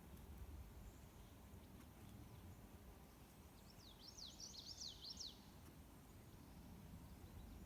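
A songbird sings one short, rapid phrase of quick falling high notes a little past midway, over a faint low outdoor rumble.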